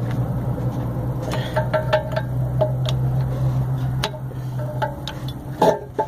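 Irregular metallic clicks and clinks as a wrench turns the piston of a rear disc-brake caliper, over a steady low hum.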